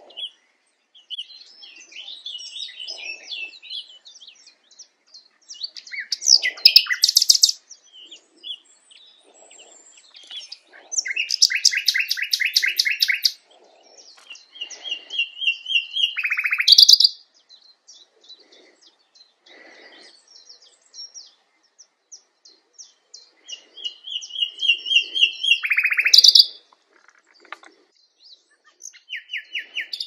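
Common nightingale singing: separate phrases broken by short pauses, mixing soft quiet notes with loud, fast runs of repeated notes that swell in volume. The loudest phrases come about 6, 11, 16 and 25 seconds in.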